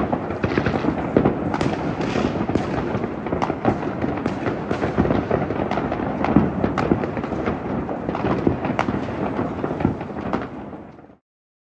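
New Year's fireworks, many going off at once: a continuous rumble of overlapping bangs with frequent sharp cracks. The sound fades and then stops suddenly about eleven seconds in.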